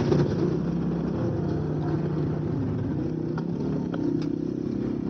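Honda Vario scooter's engine idling steadily at low revs, with a few faint clicks.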